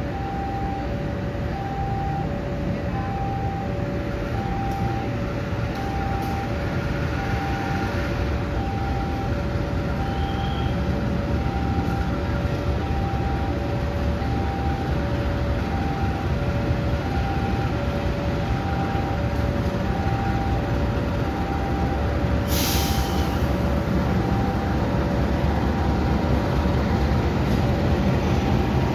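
Diesel locomotive rumbling as it hauls a passenger train slowly into the station, growing louder toward the end as it draws level. A short hiss of air comes about two-thirds of the way through. A two-note electronic beep alternates high and low all the while.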